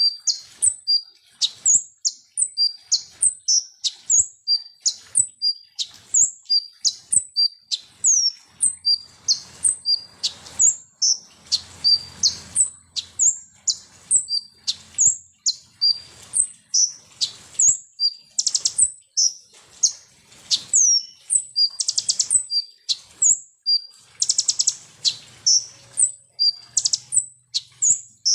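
Konin (kolibri ninja) sunbird singing a fast, unbroken string of short, high, sharp chirps, two or three a second, broken now and then by quick rattling trills.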